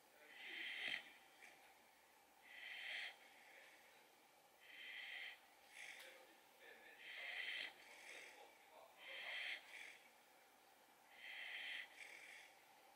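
A sleeping brindle boxer puppy, a short-muzzled breed, snoring: a short, airy, fairly high snore with each breath, about one every two seconds, in a steady rhythm.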